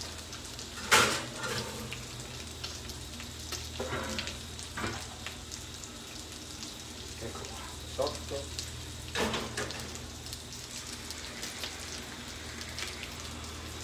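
Sardines sizzling and crackling in a hot cast-iron frying pan, over a steady low hum. A few knocks of pans being handled on the hob break in; the loudest is about a second in, with more near four, eight and nine seconds.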